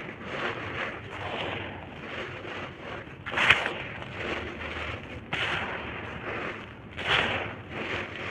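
Dry red dirt shapes being crushed and crumbled into powder: a run of gritty crunching, with sharper crunches about three and a half seconds in, again past five seconds, and around seven seconds.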